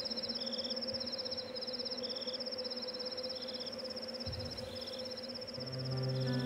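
Crickets chirping in fast, high, pulsing trills, several overlapping in a repeating pattern. Soft music with sustained low notes comes in near the end.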